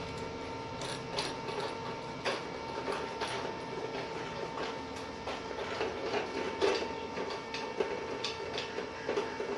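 Stainless steel ornament ball being unscrewed by hand from its bolt: irregular small metallic clicks and scrapes of the threads turning, over a steady faint hum.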